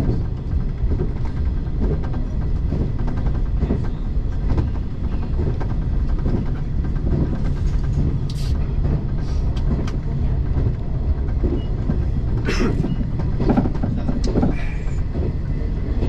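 JR 381 series electric multiple unit running at speed, heard inside the driver's cab: a steady low rumble of wheels on rails, with a couple of short high squeals about eight and twelve seconds in.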